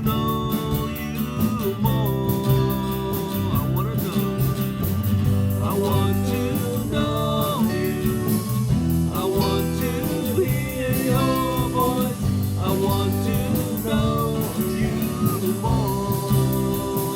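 Worship band playing a contemporary worship song, with guitar and a singing voice over steady accompaniment.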